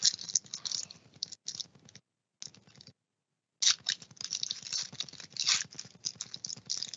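Foil wrapper of a trading card pack crinkling as it is torn open, with the cards sliding out, in short crackly bursts that drop out twice.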